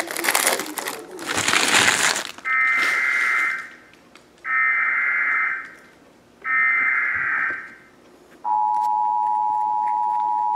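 Foil card-pack wrappers crinkle for about two seconds. Then an emergency alert broadcast sounds for a flash flood warning: three short, shrill data bursts about two seconds apart, the SAME header, followed from about eight seconds in by the steady two-tone attention signal.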